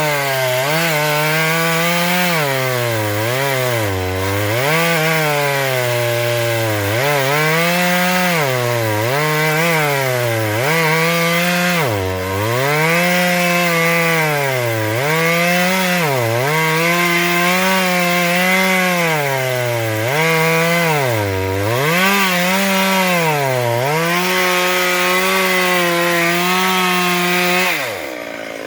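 Chainsaw cutting into the trunk of a large silk cotton (simal) tree. The engine runs at high revs and bogs down and recovers over and over, about once every second or so. Near the end the revs drop away sharply.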